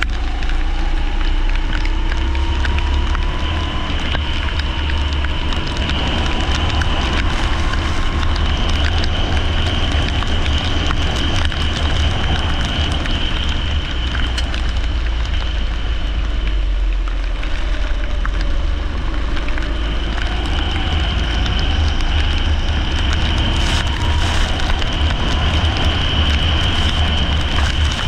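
Leisure go-kart engine running at race pace, its pitch slowly rising and falling with the throttle, over a heavy low rumble.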